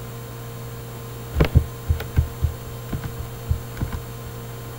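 Steady electrical hum, with a run of about ten irregular, low, thumping clicks on the laptop from about a second and a half in until near four seconds.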